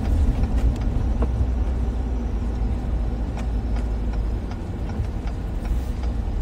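Steady low rumble of a big truck driving, engine and road noise heard from inside the cabin, with a few faint ticks.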